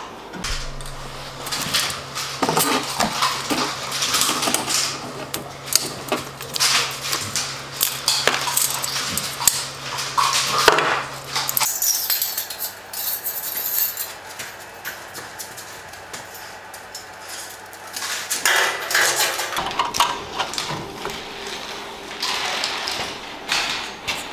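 Irregular metallic clinks, rattles and knocks as a steel bandsaw blade is uncoiled and handled around the saw's cabinet and table. A steady low hum runs underneath until about halfway through.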